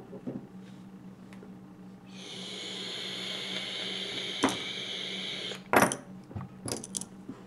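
Small hand tools, a screwdriver and pliers, being handled and set down on a cloth-covered table: a few sharp clicks and knocks, the loudest a little before six seconds in. A steady hiss runs for about three and a half seconds in the middle, over a low steady hum.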